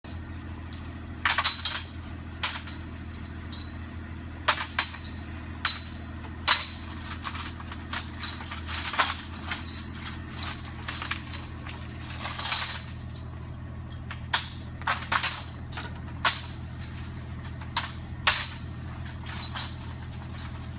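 Irregular metallic clanks and jingles of steel greenhouse pipes and fittings being pulled apart and handled during demolition, over a steady low engine hum.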